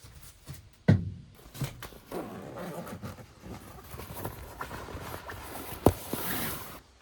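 Two sharp knocks about five seconds apart, with irregular rustling and scraping between them, like objects being handled.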